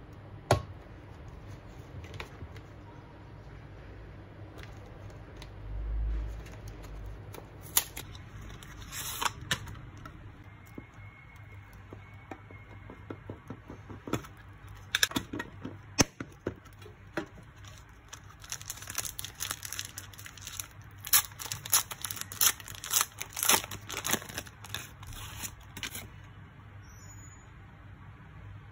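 Hands unboxing a Match Attax booster tin: cardboard packaging and the metal tin scraping and clicking, with a low thump about six seconds in, then a dense run of crinkling and tearing in the second half as the trading cards are handled.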